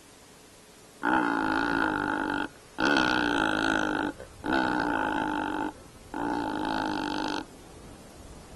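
Male secretarybird giving its territorial call: four long, deep calls of about a second and a half each, evenly spaced with short gaps. It is the dominant male's display to see off a rival male.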